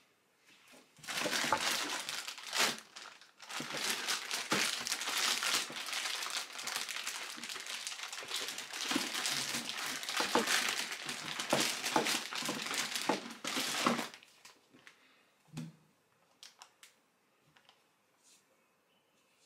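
Thin clear plastic packaging bag crinkling as hands open it and pull out the parts, with a short break about three seconds in. It stops about fourteen seconds in, and a few faint taps follow.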